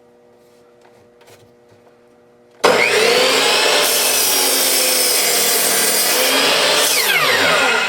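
Chop saw starting suddenly about two and a half seconds in and cutting through a 4x4 wood post, loud and steady; near the end the trigger is released and the blade winds down with a falling whine.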